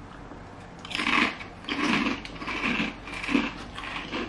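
Popped potato chips (Potato Pops) being bitten into and chewed: an irregular run of crunches starting about a second in.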